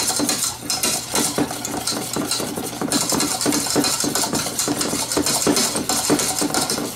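Wire whisk beating thick chocolate icing in a stainless steel saucepan, with rapid clicks and scrapes of the wires against the pan, several a second. Powdered sugar is being whisked into melted butter, milk and cocoa.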